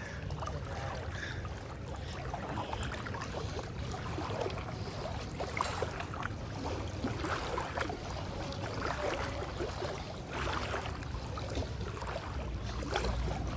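Floodwater sloshing and splashing, with irregular small splashes throughout.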